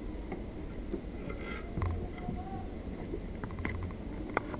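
Small clicks and taps from hands adjusting a stereo microscope on a workbench: a cluster about a second in, a quick run of about four clicks later, and a sharper single click near the end, over a steady low hum.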